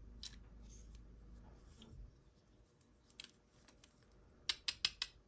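Faint scattered clicks and taps from a small toy and its packaging being handled, then four sharp clicks in quick succession near the end.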